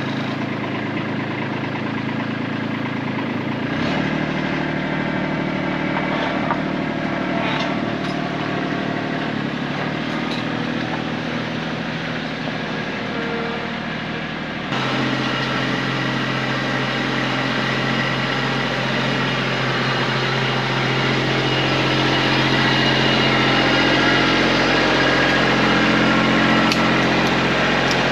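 Kubota tractor's diesel engine running steadily just after starting, mostly at idle. About fifteen seconds in, the engine note steps up to a faster, louder run as the throttle is raised.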